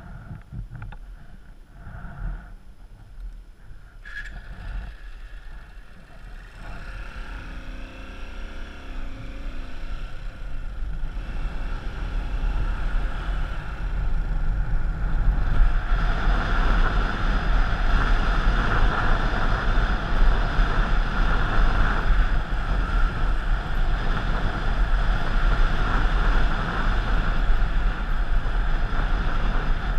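Wind buffeting the microphone over the rumble of a moving vehicle, growing louder as it picks up speed and staying loud from about halfway in.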